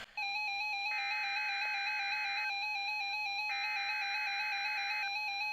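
NOAA Weather Radio SAME digital header for the Required Weekly Test: two bursts of rapid, chirpy two-pitch data tones, each about a second and a half long, one about a second in and one about three and a half seconds in. Under them a weather radio receiver sounds a steady, buzzy electronic alert tone.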